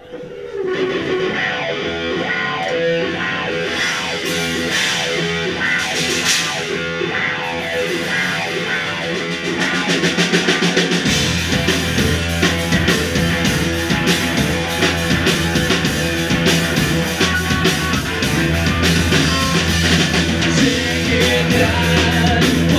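Rock band playing live: guitar and drum kit. About halfway through, a deep low end comes in and the music gets fuller and louder.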